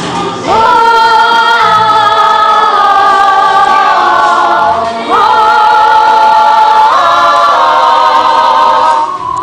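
Musical-theatre song with a group of voices singing in harmony, holding long notes; the voices slide up into a new held chord about half a second in and again about five seconds in.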